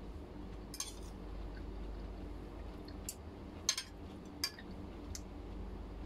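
A spoon and fork clinking and scraping against a plate while eating, about five short clinks with the loudest just past the middle.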